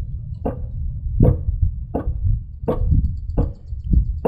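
Rear driveshaft and pinion flange of a Toyota FJ Cruiser being rocked back and forth by hand, clunking about six times, one every 0.7 seconds or so, as the slack is taken up at each end of travel. The clunking is the sign of excessive ring and pinion backlash: the driveshaft moves well over a quarter inch with the wheels on the ground.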